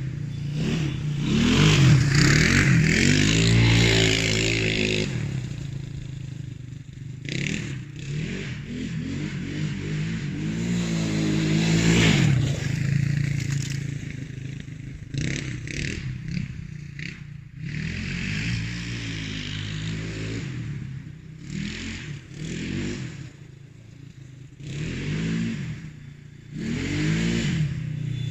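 Triton 300 quad's engine on its stock exhaust, revved up and let back down repeatedly, the pitch rising and falling about five times.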